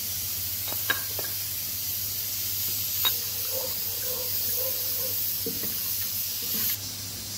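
Sliced onions sizzling in hot oil in a metal pot as they are stirred with a wooden spoon, with two sharp knocks about one and three seconds in. The sizzle drops off suddenly near the end.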